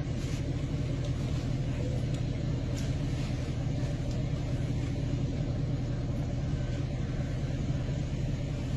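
A machine running with a steady low hum, with a few faint clicks over it.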